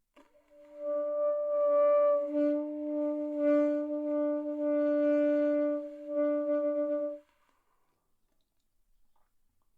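Saxophone played by a learner: one steady mid-range note held for about six seconds, with a few brief dips where it is re-attacked, then cut off sharply.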